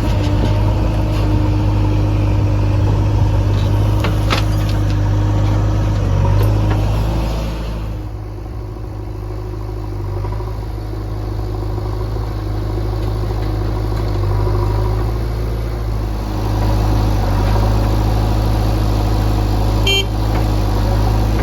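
Heavy diesel engines of a JCB 3DX backhoe loader and farm tractors running steadily under work. The sound eases off for a few seconds midway, then builds back up, with a short high beep near the end.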